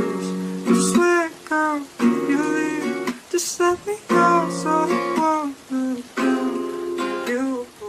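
Music: a song's acoustic guitar passage, played in short phrases.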